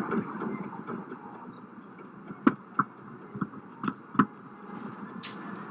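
Car driving on a snow-covered road, heard from inside the cabin: a steady rumble of tyres and engine, with five sharp knocks in the middle, the loudest about two and a half and four seconds in.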